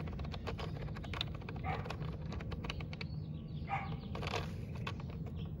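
Quick, irregular plastic clicks of the pressure-setting dial on a DeWalt 20V cordless tire inflator as it is turned to raise the target pressure.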